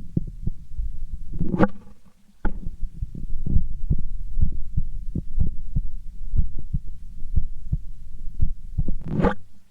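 A man's heartbeat heard through a stethoscope on the chest: a steady lub-dub, about one beat a second. Two louder whooshing noises come in, one about a second and a half in and one near the end, with a brief gap after the first.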